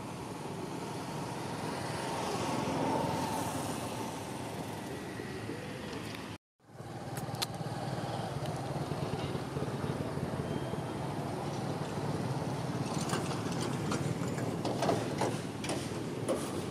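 Steady outdoor background rumble, like distant traffic, that swells slightly a few seconds in. It cuts out completely for a moment about six and a half seconds in, and a few faint ticks come near the end.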